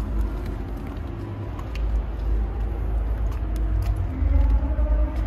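A steady low rumble, with faint voices and a few light clicks above it.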